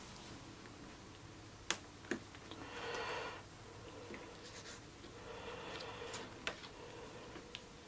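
Faint handling noises from test leads being moved: a few small clicks and some soft rubbing as probes and alligator clips are repositioned on the track.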